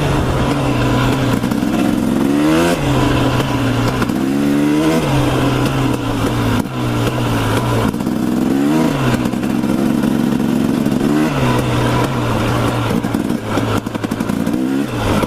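Dirt bike engine revving up and easing off again about five times as it is ridden over rough trail, its pitch climbing with each throttle burst and dropping back.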